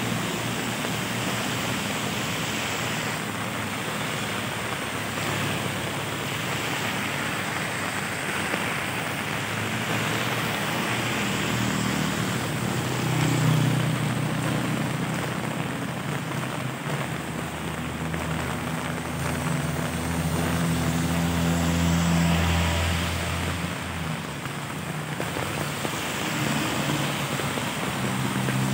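Steady rain falling on a wet street, with cars and a motorbike driving past on the wet road; the engine hum grows louder in the middle stretch and again as a vehicle passes at the end.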